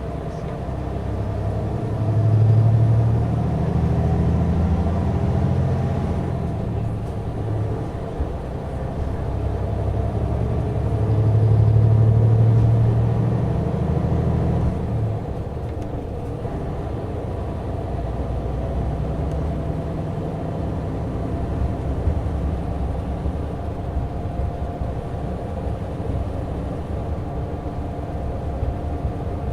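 Mitsubishi Fuso Aero Ace coach recorded on board while driving: its diesel engine's low drone swells twice, about two and eleven seconds in, then settles into a steady cruising hum over constant road noise.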